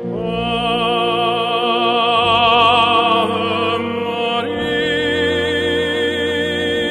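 Operatic classical music: long held notes with wide vibrato, moving to a new note about four and a half seconds in.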